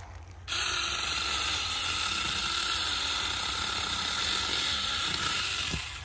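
Saker 4-inch cordless electric mini chainsaw running steadily as it cuts through the base of a small pine sapling. It starts about half a second in, holds at a constant speed with a high, even whine for about five seconds, and stops just before the end.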